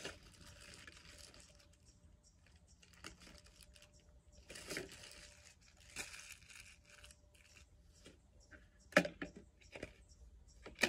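Crinkling and tearing of packaging handled by hand in short rustling bursts, with a few sharp clicks, the loudest about nine seconds in and another near the end.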